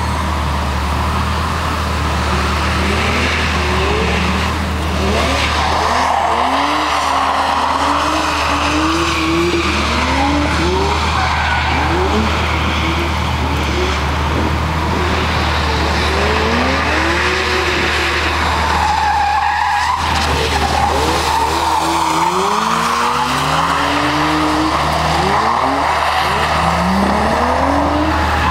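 A drift car's engine revving hard again and again, its pitch rising with each throttle burst and dropping at each lift or gear change, while the tyres squeal and skid as the car slides. All of this sits over a steady low rumble.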